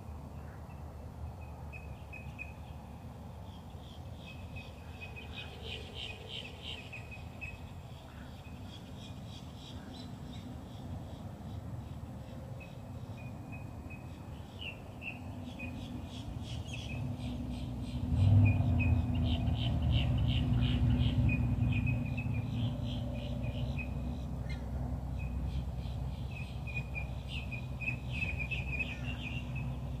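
Small birds chirping in quick repeated bursts. A low rumble swells up about halfway through, peaks soon after, then slowly fades while the chirping goes on.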